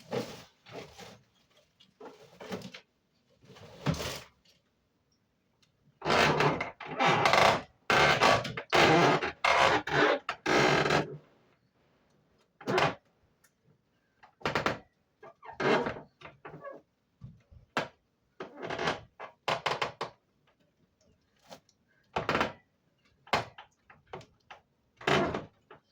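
Irregular knocks, thunks and rattles of a window air conditioner and its fittings being handled and fitted into the window frame, with a dense run of clattering about six to eleven seconds in.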